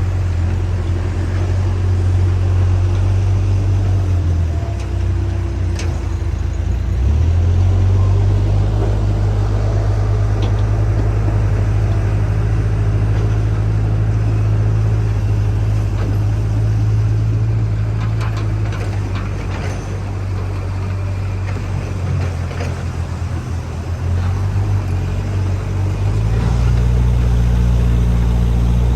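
Diesel engine of a JCB backhoe loader running steadily. Its note sags about five seconds in and picks up again at about seven seconds, then sags and rises again near the end as engine speed changes under work.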